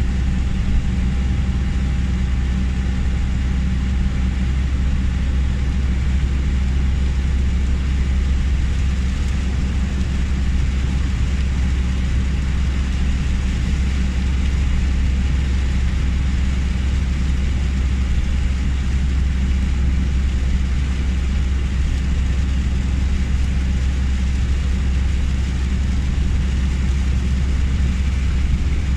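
A car driving on a motorway in heavy rain: a steady low rumble of the vehicle with the even hiss of rain and tyre spray on the wet road.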